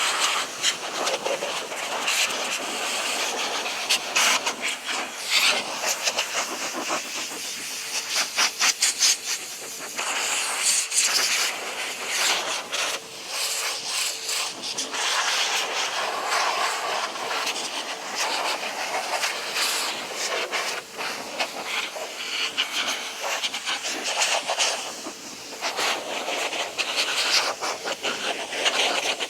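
Air blower blow-drying a freshly washed motorcycle: a rather loud rushing hiss of air that keeps swelling and dipping as the nozzle is moved over the bike.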